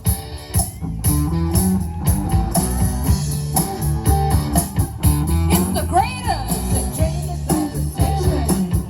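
Live rock band playing a song: electric guitar, bass and a steady drum beat, with a bending guitar or vocal note about six seconds in.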